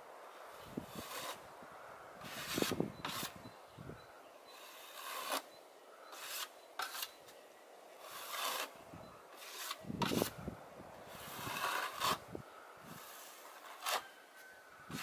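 Hand float scraping and rubbing over wet stucco on a wall in irregular strokes, about one a second, each a short hissing scrape.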